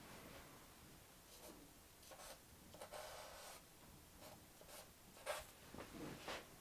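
Faint scratching of a charcoal stick on drawing paper: a few short strokes, with a slightly louder one late on.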